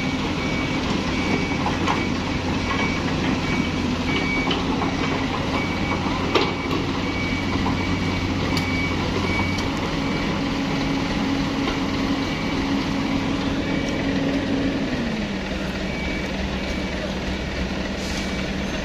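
Diesel engine of a crawler excavator running steadily, its hum dropping in pitch about 15 seconds in as the revs ease off. A high warning beep repeats roughly once a second over it, and there is a single sharp knock about six seconds in.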